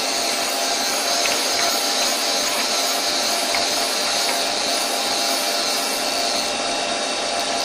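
A CNC lathe spindle turning a metal workpiece while the turret tool takes a trial cut on the outer diameter, the cut used for measuring and setting the tool offset. It is a steady machine noise with a strong high hiss.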